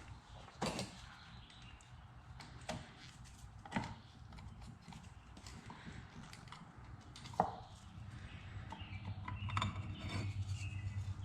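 Scattered metal clinks and knocks as parts of a Yamaha YZ85 dirt bike's clutch are handled and pulled out. A low steady hum comes in about eight seconds in, with a quick run of clicks near the end.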